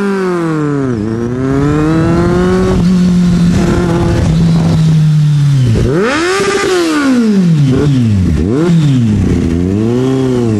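Husqvarna supermoto motorcycle engine being revved hard while riding, a racket. The revs dip and climb, hold steady for a few seconds, then rise and fall sharply several times in the second half.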